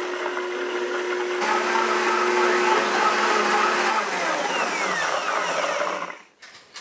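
Blendtec blender running its preset sauces-and-dressings cycle on a thin liquid dressing: a steady motor whine over the churning liquid. The pitch changes about a second and a half in and again about four seconds in, and the blender stops about six seconds in.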